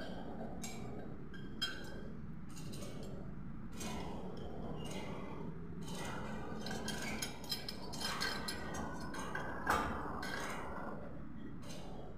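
Irregular metallic clinks and scrapes of a pipe wrench being worked on a metal sprinkler pipe fitting overhead, over a steady low hum.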